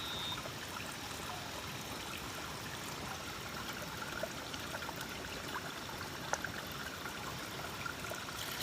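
Running water trickling steadily, with a few faint clicks.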